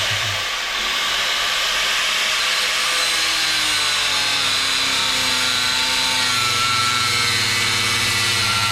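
Angle grinder with a cutting disc running steadily while cutting down an aluminium gearbox part, its whine drifting in pitch as the disc bites into the soft metal.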